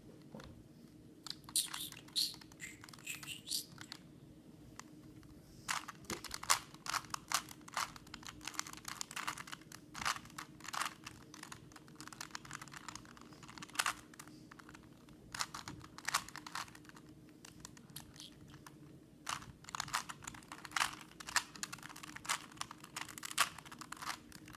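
Rubik's Cube being turned by hand: irregular runs of quick plastic clicks and clacks as the layers are twisted through the middle-layer algorithms.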